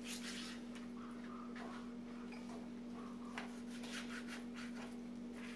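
Kitchen knife slicing raw pork leg into large chunks on a plastic cutting board: soft, irregular cutting and scraping strokes. A steady low hum runs underneath.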